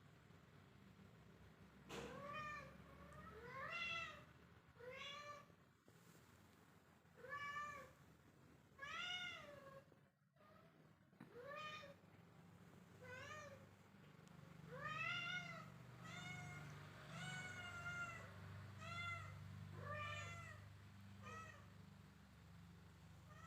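Kitten meowing over and over, a short high call every second or two, each one rising and falling in pitch.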